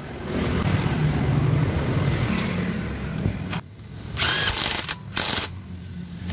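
A motor vehicle engine running in the background, its low hum shifting in pitch, then two short bursts of hiss about four and five seconds in.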